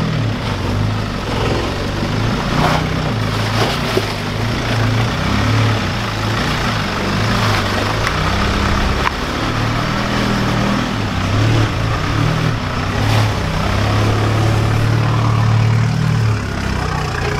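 Nissan Patrol 4WD's engine running at low revs, the note rising and falling as it crawls through a deep rut, with a few short knocks along the way.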